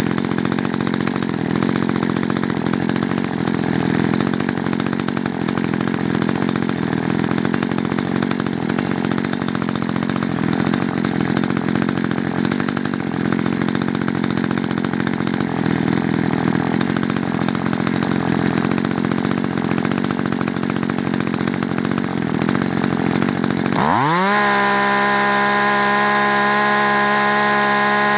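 Two-stroke chainsaw engine idling at about 2,900 rpm. About 24 seconds in, the throttle is opened and it revs up quickly to full speed, then holds a steady high pitch at about 12,400 rpm, close to the 12,500 rpm maximum set for this model.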